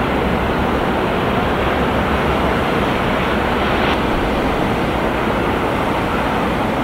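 Steady rushing outdoor noise of wind and sea with a low rumble underneath, shifting slightly about four seconds in.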